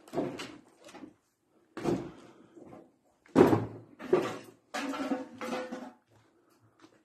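Footsteps thudding and crunching on loose rubble and debris: a run of sudden steps and knocks about a second apart, the loudest a little past the middle.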